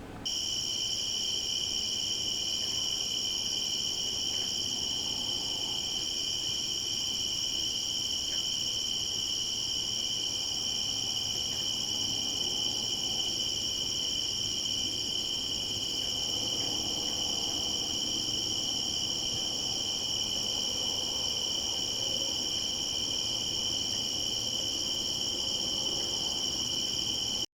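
A dense chorus of night insects, a steady, unbroken high-pitched trill in two layered pitches.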